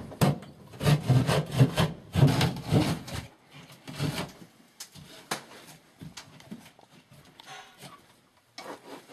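Hand saw cutting through ceiling drywall in quick back-and-forth strokes, about three a second, then quieter scrapes and knocks after about three seconds.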